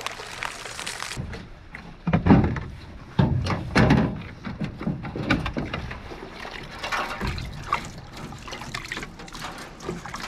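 Water sloshing and splashing in a plastic bucket as a hand scoops live minnows out of it, with several louder splashes and knocks between about two and four seconds in.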